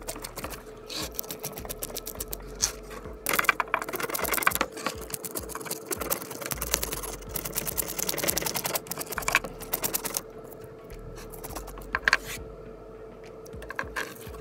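A spoon scraping the scales off a bluegill on a wooden board: runs of fast rasping strokes with short pauses between them, heaviest in the first half.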